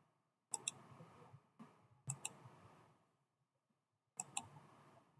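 Computer mouse clicking: three quick pairs of clicks, about a second and a half apart.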